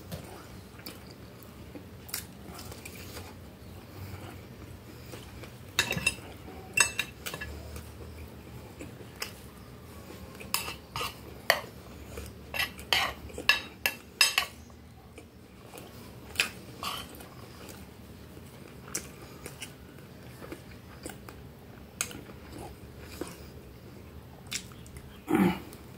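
Metal fork and spoon clinking and scraping against a glass plate in irregular bursts of sharp clicks, with chewing between them. A single louder, low sound comes near the end.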